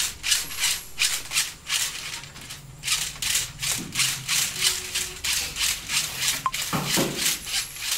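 Electrical wires being pushed through a PVC wall conduit in quick repeated strokes, the insulation rubbing inside the pipe at about three strokes a second, with a brief lull about two seconds in.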